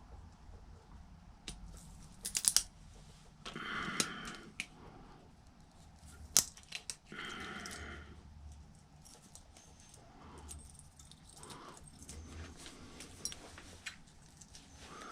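Hand tools and small metal parts clicking and scraping while a glued-on copper deflection yoke is worked loose from a small tube. There are sharp clicks, a quick cluster about two and a half seconds in, and two short scraping stretches around four and seven seconds in.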